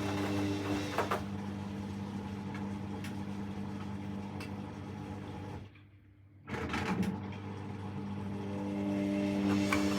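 Hoover washing machine draining and turning its drum to distribute the load before the final rinse, the motor humming steadily. About six seconds in, the motor cuts out for under a second, then clicks and starts again to turn the drum the other way.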